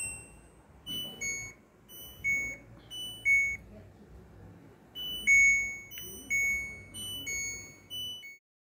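LG D1454TF dishwasher control panel beeping as its buttons are pressed: a two-note beep, high then lower, about once a second, with a short pause in the middle. The board, which had been dead with no sound and no display, now responds.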